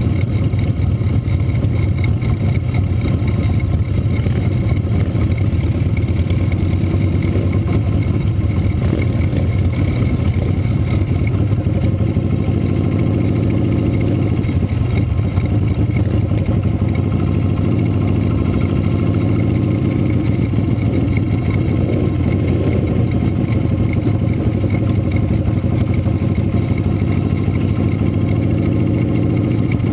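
Motorcycle engine running steadily at a slow cruise, heard close up from on board the bike, with other motorcycles running just ahead. The engine pitch shifts a little in places.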